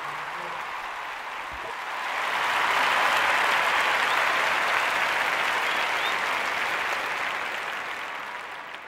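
Applause, building up about two seconds in and slowly dying away near the end.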